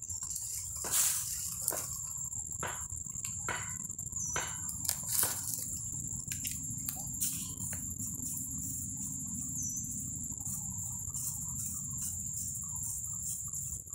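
Steady high-pitched insect trill, with scattered sharp crackles like dry leaves being stepped or brushed, loudest about a second in and about five seconds in, over a low rumble.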